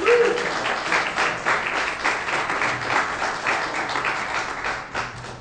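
Congregation applauding, many hands clapping together, which stops at the very end. A short voice call rises over it just at the start.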